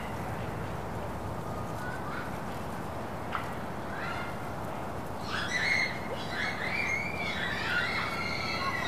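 Outdoor ambience of a soccer ground in a steady wind. About halfway through, children's distant shouts and calls from across the pitch come in and grow louder near the end.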